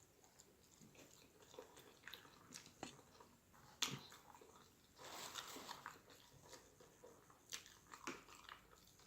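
Faint close-up eating sounds: a person chewing and biting, with scattered small clicks and smacks of the mouth. The sharpest click comes about four seconds in, followed by a second-long patch of denser chewing noise.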